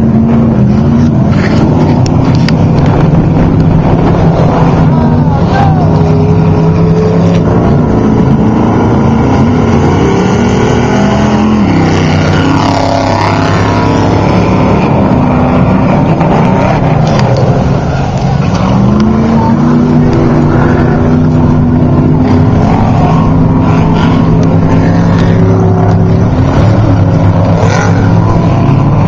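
Off-road race truck engines running loud and steady. The pitch drops about twelve seconds in, sweeps briefly up and down, dips again around eighteen seconds and then climbs back.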